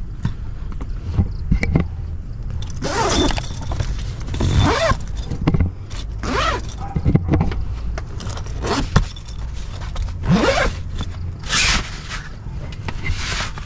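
Zippers on an Adventure Kings rooftop tent's canvas and mesh window panels being pulled in several quick strokes, with the fabric rustling and being handled between them.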